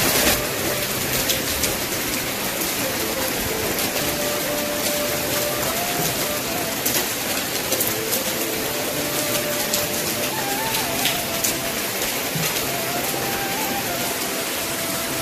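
Heavy rain pouring steadily, with sharp drip splashes here and there and a faint melody of held notes over it.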